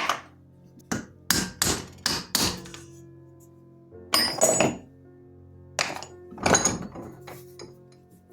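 Hammer knocks on the knife's old handle and its pinned-over nails as the handle is knocked off the tang: a quick run of sharp hits in the first couple of seconds, then a few longer, rougher clusters of impacts.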